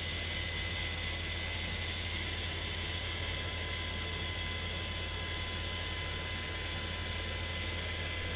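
Steady low electrical mains hum with faint high steady tones and hiss, unchanging throughout.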